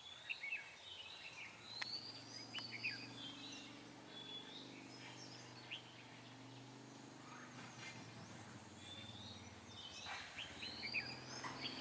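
Red-whiskered bulbuls singing short, bright chirping phrases, one cluster in the first few seconds and another near the end. This is the fighting song of caged decoy bulbuls and a wild bulbul close to the trap.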